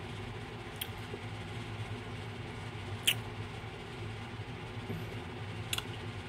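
Quiet steady low background hum, with three short faint clicks about a second in, three seconds in and near the end.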